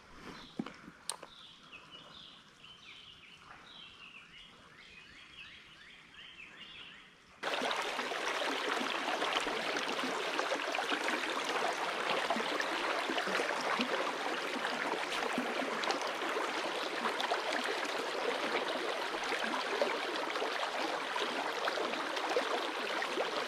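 For about the first seven seconds, faint repeated short chirps of a bird over a quiet background. Then, abruptly, a steady rush of flowing creek water takes over and runs on evenly.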